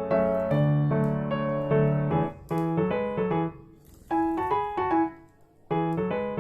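Background piano music: a melody of single notes and chords, breaking off briefly a little after five seconds in.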